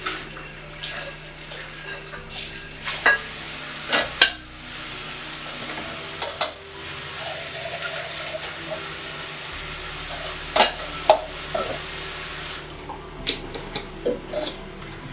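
Dishes being washed by hand under running tap water, with several sharp clinks and knocks of cookware and utensils against the sink. The running water stops about two-thirds of the way through.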